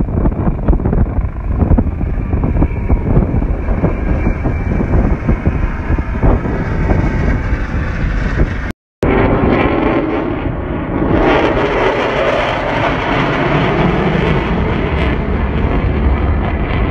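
Helicopter flying low past, heard with heavy wind buffeting on the microphone. After a brief cut, a fuller, steady aircraft engine noise takes over and grows louder a couple of seconds later as a plane passes.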